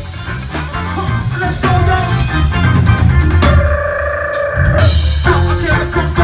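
Live band playing amplified rock: electric guitar, bass and a drum kit, recorded from the crowd. A chord is held for about a second partway through, and then the playing changes.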